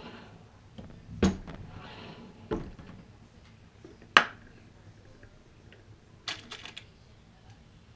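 Handling noise from hand-loading ammunition: brass cartridge cases and reloading-press parts being set down and worked on a bench. A few sharp knocks, the loudest about four seconds in, then a quick run of light metallic clinks near the end.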